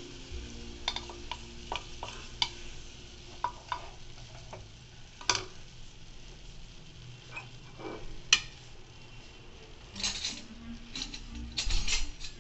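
Mutton pieces sizzling in hot oil in an aluminium pressure cooker while a wooden spoon stirs them, scraping and knocking against the pot. Now and then a sharp knock, the loudest about five and eight seconds in, with a cluster of knocks near the end.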